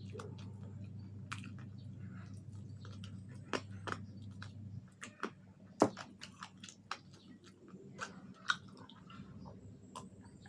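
Close-up mouth sounds of chewing and biting fried chicken wings: wet smacks and sharp crunchy clicks at irregular moments, the sharpest about six seconds in. A low steady hum runs beneath for the first half and stops a little before the middle.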